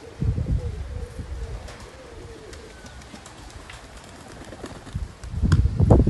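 Domestic pigeons cooing, a low, drawn-out coo over the first couple of seconds. Near the end comes a louder low fluttering rumble.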